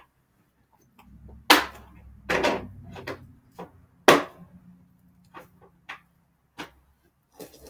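Several sharp knocks and clacks of hard objects being handled, the loudest about a second and a half in and about four seconds in, over a faint low rumble.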